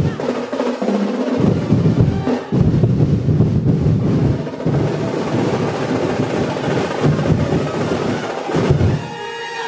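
Street-dance percussion ensemble playing fast, loud rolling drums, deep bass drums under snare-type drums, stopping near the end.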